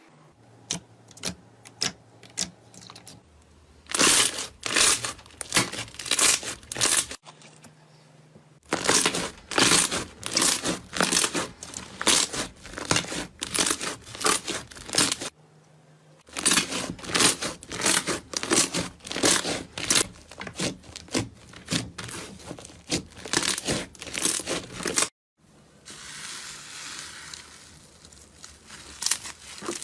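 Slime being squeezed and worked, making rapid runs of crackling pops. There are three bursts, each several seconds long, with short pauses between them, and a softer hiss near the end.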